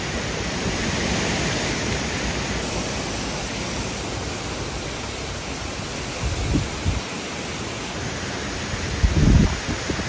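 Severe thunderstorm: a steady hiss of driving rain and high wind. Two stronger low gusts come through, about six and nine seconds in.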